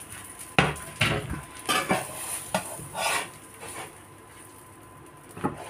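Slotted metal spatula clinking and scraping against a nonstick frying pan as a folded tortilla is worked loose. A run of sharp clinks comes over the first three seconds or so, then a pause and one more near the end.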